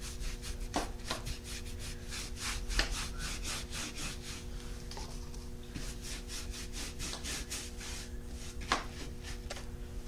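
A round wax brush scrubbing soft wax into a rough textured painted frame in quick back-and-forth strokes, a steady scratchy rubbing with a couple of light knocks, the loudest near the end.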